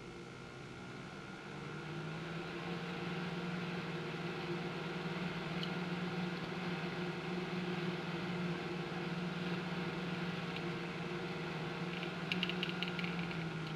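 12 cm PC case fan running: a steady motor hum with a low tone and air hiss, getting louder over the first couple of seconds as it spins up, then holding. A brief patch of faint clicks comes near the end.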